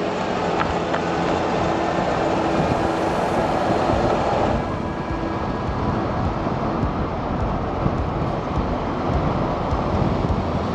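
Car driving, a steady rumble of engine and road noise; the higher hiss eases about halfway through.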